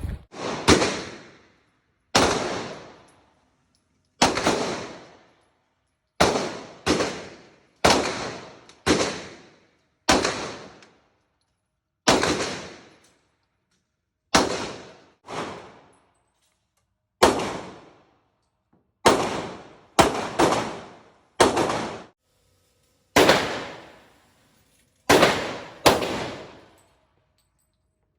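Pistol shots fired one at a time at an irregular pace, about nineteen in all, mostly a second or two apart with a few quicker pairs. Each crack rings out and dies away over nearly a second.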